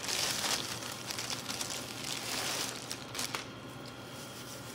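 Thin plastic bag crinkling and rustling as it is handled, loudest at the start, with a couple of sharp clicks a little over three seconds in.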